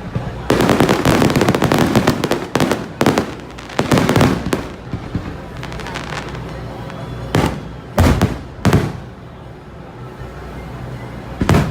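Fireworks display going off: a dense, fast crackle of many bursts for about four seconds, then quieter, then a few separate loud bangs, three close together and one near the end.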